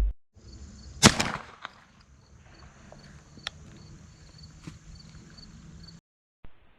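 A single shotgun shot about a second in, with a short ringing tail, followed by a few faint clicks.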